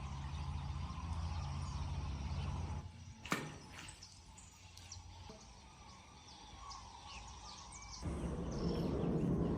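Outdoor riverside ambience. A low rumble runs for about the first three seconds, drops away to leave birds chirping, and returns loudly near the end. A single sharp click comes about three seconds in.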